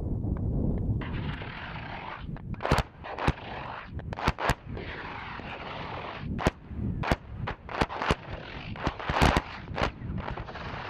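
CBU-105 cluster bomb submunitions detonating over and around target tanks. A low rumble in the first second gives way to an irregular scatter of a dozen or more sharp bangs over a hissing wash, several coming in quick succession near the end.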